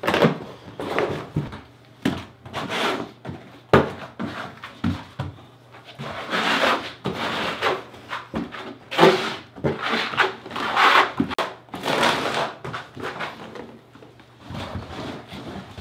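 Trowel spreading thin-set mortar over a wooden subfloor: repeated scraping strokes, roughly one a second.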